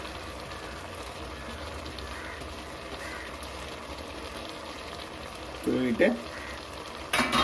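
Vegetable biryani simmering in a pot on low heat, a soft steady bubbling hiss. Near the end a sharp clank.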